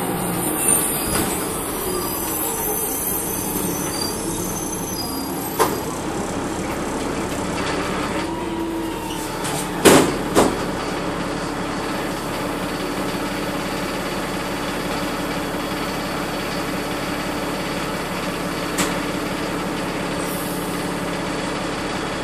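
Transit bus heard from inside the cabin while under way: the diesel drivetrain with its original Voith automatic transmission runs steadily under the rattle of the body. A few sharp knocks cut through it, the loudest a pair about ten seconds in.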